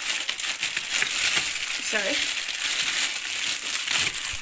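Steady crackly rustling and crinkling close to the microphone, with a brief voice sound about two seconds in.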